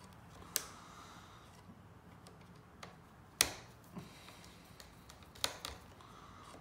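Small screwdriver working the terminal screws of an angle grinder's replacement switch: a handful of separate sharp clicks and ticks of metal and plastic, the loudest about three and a half seconds in.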